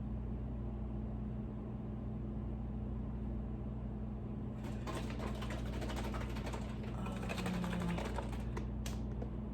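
Steady low hum, with clicking and rustling of food containers and packages being handled starting about five seconds in.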